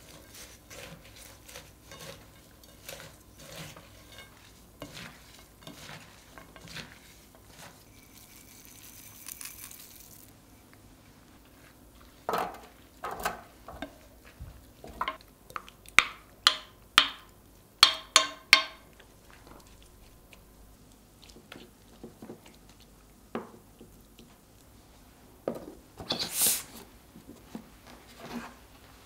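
Wooden spoons tossing shredded, seasoned radish salad in a glass bowl, with soft, wet stirring strokes. Partway through comes a run of sharp taps and knocks as the utensils strike the bowl and a plastic storage container while the salad is scooped across. Near the end a louder clack sounds as the container's lid is pressed on.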